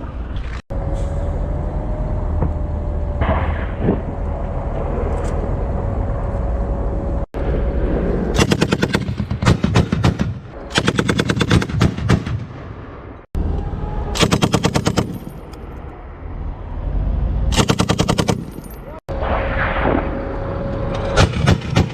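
Heavy machine gun firing long automatic bursts, four runs of rapid shots each lasting one to two seconds, with a steady whine between the bursts and a few abrupt cut-offs.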